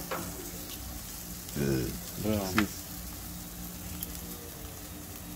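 Burger patties and chicken wings sizzling on a gas grill, with a low steady hum underneath.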